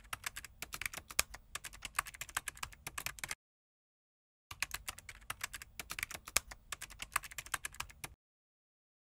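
Typing sound effect: rapid key clicks in two runs of about three and a half seconds each, with about a second of silence between them, stopping about a second before the end.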